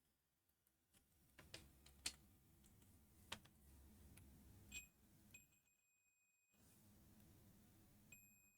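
Faint multimeter continuity beeper sounding as the probes make contact: a brief beep, then a longer steady beep lasting about a second, and another near the end, with a few light clicks of probe tips on the board before them. The beeps are the meter confirming continuity across the freshly soldered charging-port joints.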